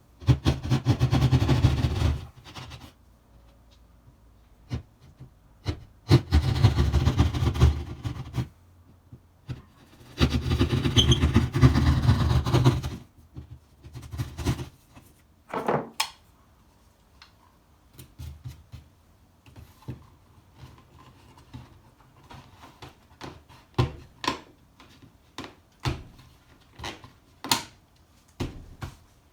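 A power cutting tool runs in three bursts of two to three seconds each, cutting a box-sized hole in drywall. Scattered knocks and taps follow as the cut-out is worked free and an old-work electrical box is fitted into the hole.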